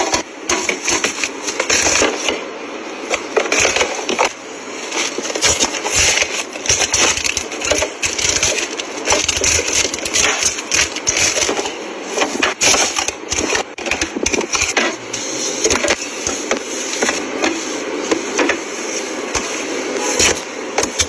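Packaging and plastic containers being handled and set onto freezer shelves: a busy run of clacks, knocks and crinkles as tubs and snack packs are stacked in.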